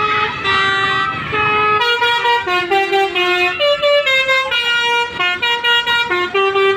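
Bus 'telolet' horn, a multi-tone musical air horn, playing a quick tune of stepped notes, about three notes a second.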